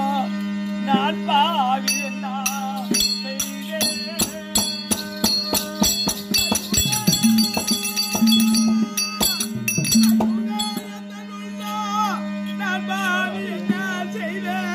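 Therukoothu folk-theatre music: an ornamented sung melody over a steady drone, giving way after about two seconds to a long run of quick percussion strokes and jingling, with the singing returning near the end.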